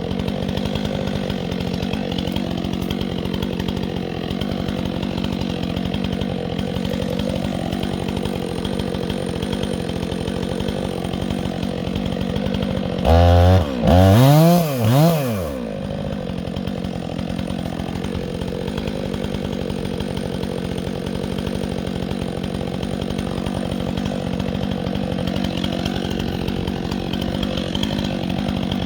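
Two-stroke chainsaw running steadily, with its engine briefly revved up and down about three times near the middle.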